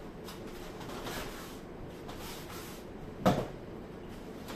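A single sharp knock about three seconds in, from a wooden long pole being handled, over a quiet room with faint shuffling.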